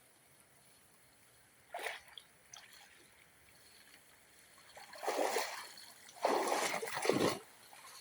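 Cast net splashing in the water: a short splash about two seconds in, then two longer, louder sloshing splashes in the second half.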